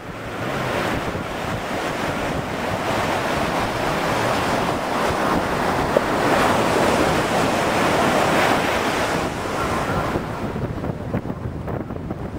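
Wind buffeting the microphone over the rush of breaking surf and spray. It builds and stays strong through the middle, then eases near the end.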